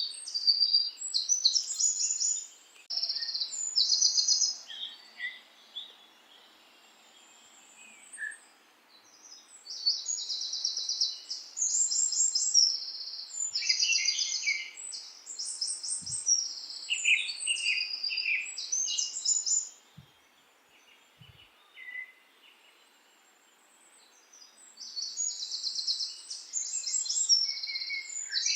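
Small songbirds singing high, rapid trilled phrases in several spells, with quiet pauses of a few seconds between them.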